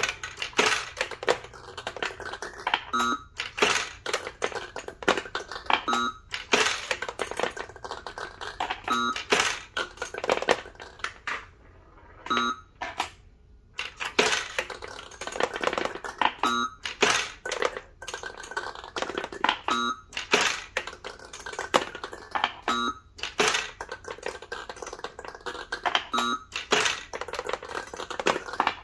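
Taiyo Challenge Ball pachinko-style machine in play: balls rattle and clatter through it in dense, irregular runs of clicks and knocks. A brief tone sounds about every three seconds, and the clatter pauses for a moment about halfway through.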